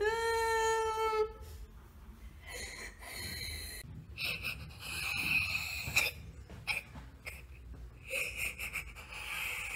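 A boy crying: a drawn-out wailing sob that breaks off about a second in, then quieter, broken breathy sobbing.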